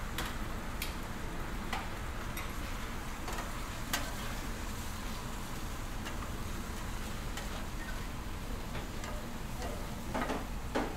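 Thin layer of beaten egg sizzling steadily on a hot steel griddle, with scattered sharp clicks and taps of a metal scraper against the plate and a few more scrapes near the end.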